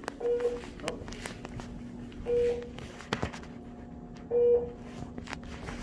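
Electronic beep, a short single tone repeating three times about two seconds apart, over a steady low hum, with a few sharp clicks from handling.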